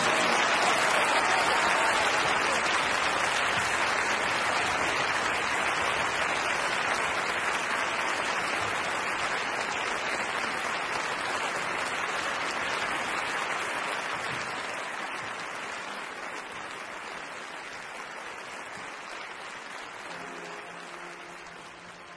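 Audience applauding, strongest at first and dying away over the last several seconds, with faint music coming in near the end.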